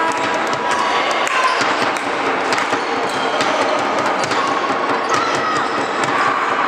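Handball being played in a sports hall: the ball bouncing on the wooden court and players' shoes thudding and squeaking on the floor, with players' and spectators' voices in the background.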